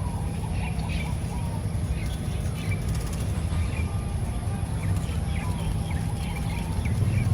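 Songbirds chirping, many short high calls and a few brief whistled notes scattered throughout, over a steady low rumble.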